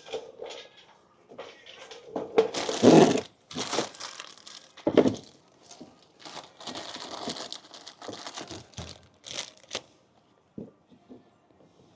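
Packaging being crinkled and torn open in irregular bursts, loudest about three seconds in.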